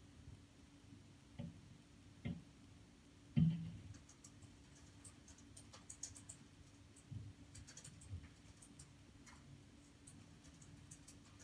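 Boots treading in snow: a few dull thumps, the loudest about three and a half seconds in, then many light, scattered crackling ticks.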